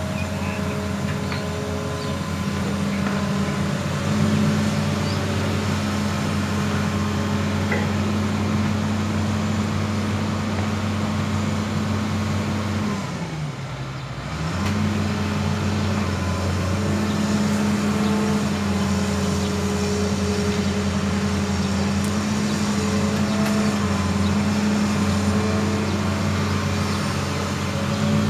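Hitachi Zaxis 200 crawler excavator's diesel engine running steadily under working load as it digs and swings its bucket; about halfway through, the engine speed dips briefly and then picks back up.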